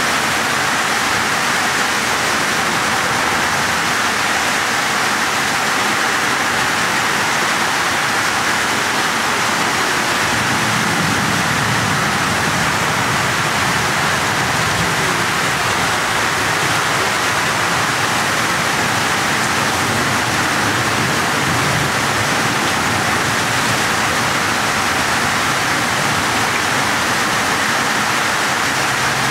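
Fast-moving floodwater rushing past in a steady, unbroken torrent, mixed with heavy rain.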